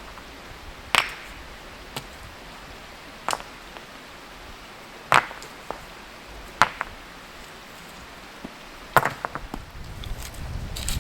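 Irregular sharp chopping strikes: five loud ones one to two seconds apart, with a quick run of lighter taps near the end.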